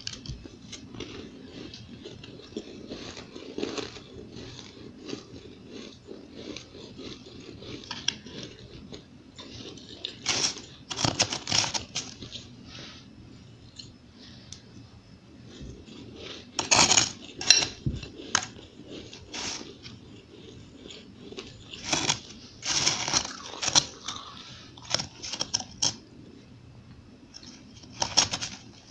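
Powdery crushed ice being bitten and chewed, in bursts of crisp crunching every few seconds with quieter chewing in between. A metal spoon scrapes and clinks against a glass bowl as it scoops the ice.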